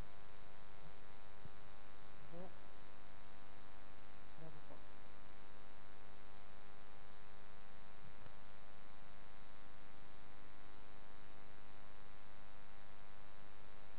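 Steady electrical mains hum with many evenly spaced overtones. Faint voices come through briefly a few seconds in.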